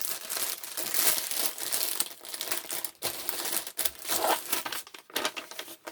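Crinkly kit packaging being handled, a quick run of rustles and crackles that thins out near the end.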